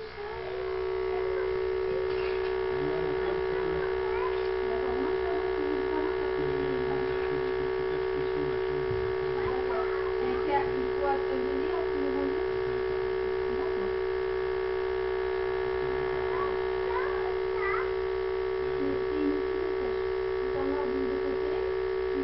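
Steady electric buzz of a Testo 340 flue gas analyzer's sampling pump running as it draws flue gas for a reading: one constant mid-pitched tone with a stack of overtones, starting abruptly and holding an even level.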